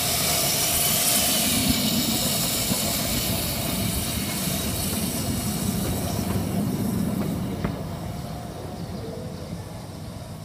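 15-inch-gauge steam locomotive Hurricane hissing steam and rumbling slowly over the rails. The hiss and rumble fade as the locomotive draws away.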